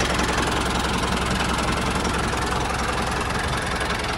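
Engine idling steadily with a fast, even knocking beat.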